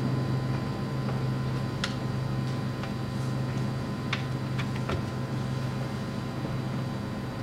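A steady low hum with a few faint, sharp clicks scattered through it.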